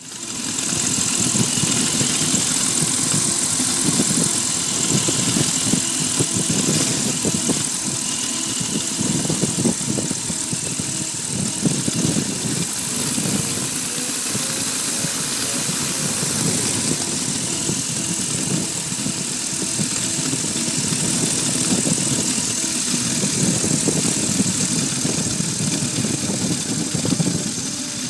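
Flexwing microlight trike's engine and pusher propeller running steadily under heavy wind rush on the microphone as the aircraft descends to land.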